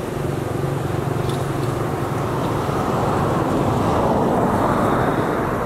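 A motor vehicle passes by: a low engine hum with tyre and road noise that swells about three to four seconds in and then eases off.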